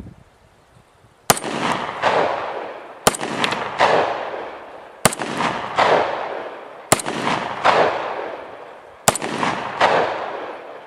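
Star 9 mm Luger semi-automatic pistol, a 1911 copy, firing five shots about two seconds apart. Each shot is followed by a long echo.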